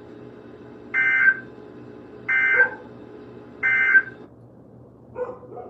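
Three short bursts of EAS digital data tones, each about half a second and a little over a second apart: the SAME end-of-message code that closes an emergency alert. A dog barks a couple of times near the end.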